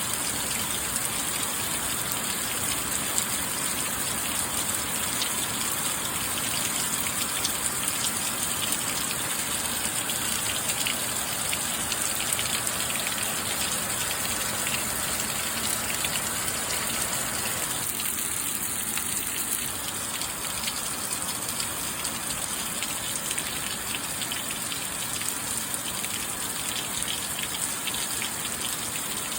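Steady rain: an even wash of falling water with many small drops ticking through it.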